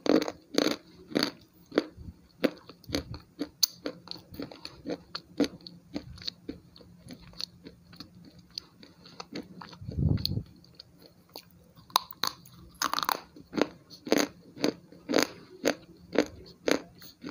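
Slate pencil being bitten and crunched close to the microphone: a run of sharp, crisp snaps, often one or two a second, with chewing between them.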